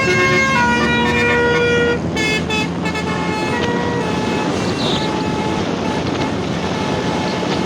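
Basuri telolet horn, a multi-trumpet musical vehicle horn, playing a melody: held notes for about the first two seconds, then a run of short notes that stops about four seconds in. After that there is steady traffic and engine noise.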